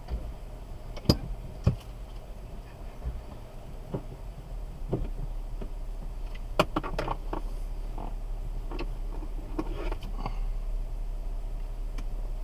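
Jeep Wrangler JK Unlimited Rubicon engine running with a steady low hum, while scattered sharp knocks and clicks come from the vehicle working over rough ground, the loudest about a second in and about two thirds of the way through.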